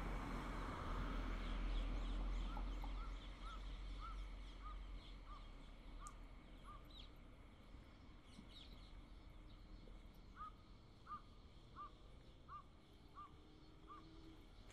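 A car passes and fades away at the start, then a bird calls in two runs of short, evenly spaced notes, about one and a half notes a second, with a pause between the runs and fainter high chirps of other birds.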